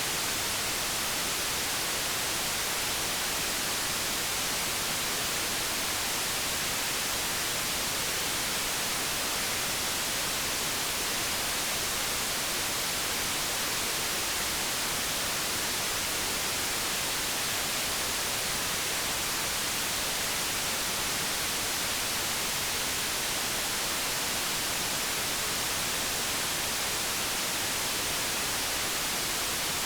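Steady white noise: an even, unchanging hiss, strongest in the highs.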